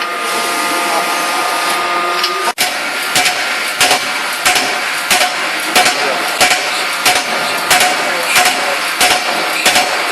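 Hydraulic closed-die forging hammer striking in a steady run of blows, about one and a half a second, over steady machine noise. For the first couple of seconds there is only the machine noise with a few held tones, then the sound cuts and the blows begin.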